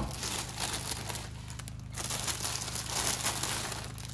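Plastic bag of baby spinach crinkling as the leaves are shaken out of it into a frying pan, in two long bursts with a short pause between them.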